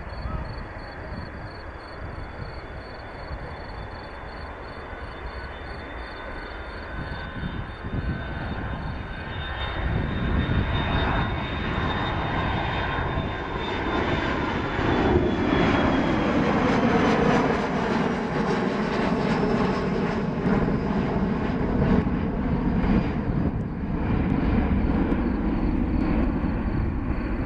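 Boeing 737-300's two CFM56-3 turbofan engines at takeoff thrust, growing louder from about a third of the way in. A high whine and the engine tones fall in pitch as the jet passes, after which the sound stays loud.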